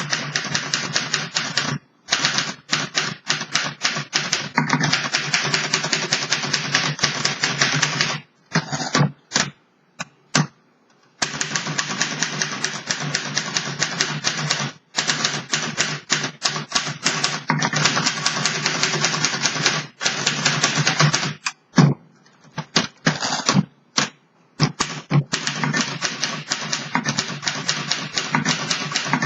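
A 1930 Underwood Portable 4-bank manual typewriter being typed on fast: quick, even runs of type-bar strikes against the platen, broken by a few short pauses.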